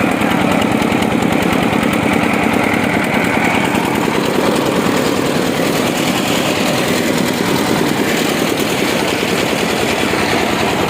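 Diesel engine of a mobile rice huller running steadily at a constant speed, with a fast, even rattle.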